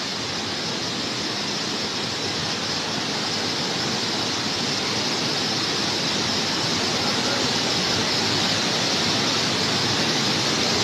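Water rushing out through opened dam gates, a steady heavy rush that grows slowly louder.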